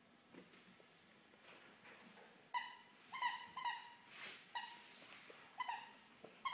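Squeaky plush toy bear squeaking in short, high bursts, about six times from a couple of seconds in, as a Shiba Inu puppy bites and chews it. The first part has only small taps and rustles.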